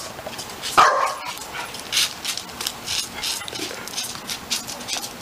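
Boxer puppy barking, one loud sharp bark about a second in, followed by light repeated scuffs and clicks.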